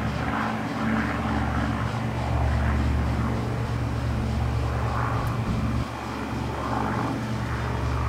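A steady low engine drone.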